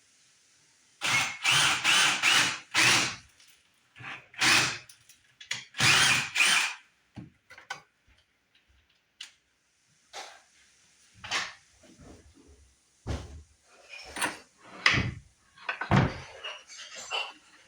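Power drill run in a series of short bursts, boring a hole in a solid wood door, followed by scattered knocks and clunks.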